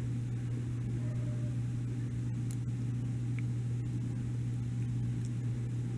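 Transmission fluid pouring in a steady stream from a quart bottle into a plastic transfer-pump reservoir, under a constant low hum.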